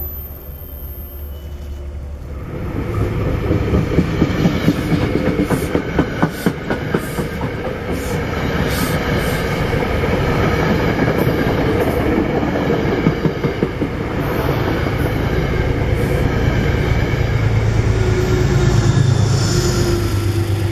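A Metro-North commuter train passing close by. The wheels click over the rail joints, and near the end the train's Genesis P32AC-DM diesel locomotive goes by with a steady, growing engine hum.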